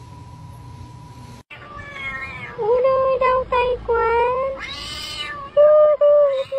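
Domestic cat meowing repeatedly, a run of loud, drawn-out calls that bend in pitch, starting about a second and a half in; before it, a faint steady hum.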